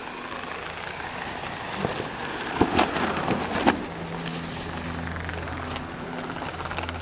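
Wind buffeting an outdoor camcorder microphone, with a few sharp knocks a little under three seconds in and again near the four-second mark, over a low steady hum.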